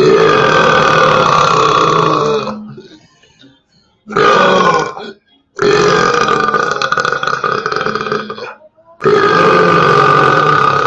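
A person belching loudly, four long, drawn-out belches in a row with short breaks between; the second is the shortest.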